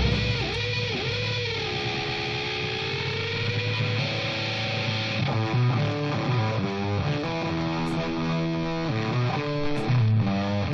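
Electric guitar and bass playing a blues-rock cover: the guitar bends its notes up and down several times, holds one long bent note, then about five seconds in switches to a choppy riff of short chords.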